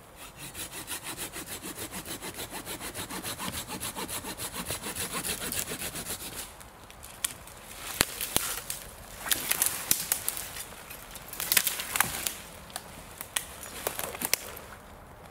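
Silky Gomboy folding pruning saw cutting through a thin standing sapling at its base, with quick, even back-and-forth strokes at about three to four a second for some six seconds. Then a run of sharp cracks and snaps of wood as the cut pole is pulled down and handled.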